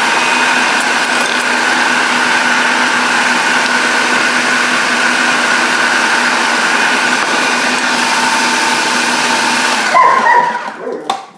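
Food processor motor running steadily with a held whine while it mixes a dough of flour, butter and sparkling water. It cuts off about ten seconds in, followed by a single click.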